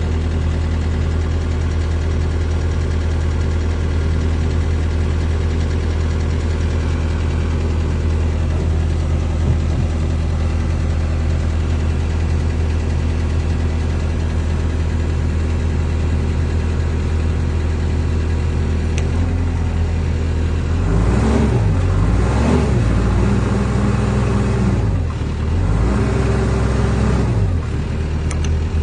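Takeuchi TL6R skid steer's diesel engine idling steadily, then revved up and let back down twice near the end.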